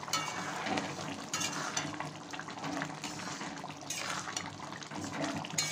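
Thick curry simmering and sloshing in a metal kadai as a metal ladle stirs it, with a few sharp clinks of the ladle against the pan.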